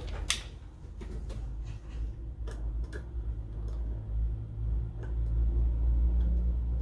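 Light clicks and taps of a soldering iron and PL-259 connector being handled while the connector's centre pin is soldered, with one sharper click near the start. Under them runs a low rumble that gets louder in the second half.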